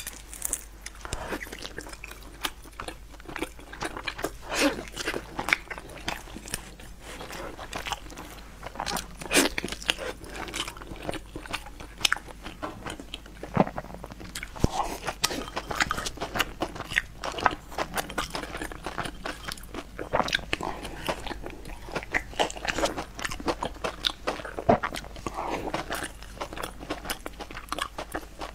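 A person eating close to the microphone: biting and chewing with many short, wet mouth clicks and smacks, several a second and irregular.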